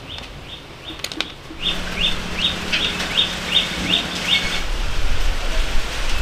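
A bird chirping in an even series of short, high calls, about two or three a second, stopping about two-thirds of the way through. A low hum runs under it, and a low rumble comes in near the end.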